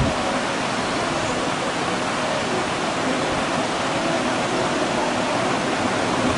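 Steady rushing air noise from an electric fan blowing over the cooking area, set running to cool the khoya mixture.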